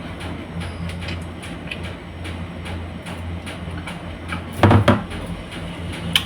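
Close-up chewing and mouth clicks of someone eating saba bananas, over a steady low hum, with a short louder burst of sound about four and a half seconds in.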